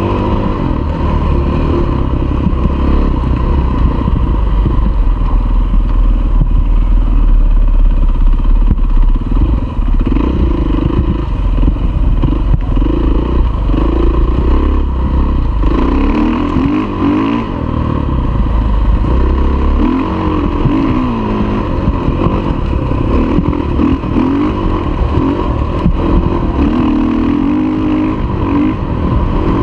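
Dirt bike engine revving, its pitch repeatedly rising and falling as the bike is ridden along a gravel trail, over a heavy low rumble.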